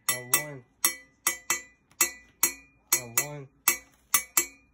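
Guataca (a hoe blade) struck with a metal rod, playing the Afro-Cuban 6/8 Bembe clave. Sharp, ringing metallic strokes fall in a repeating pattern that comes round a little under every three seconds. A brief voice is heard twice, near the start of each cycle.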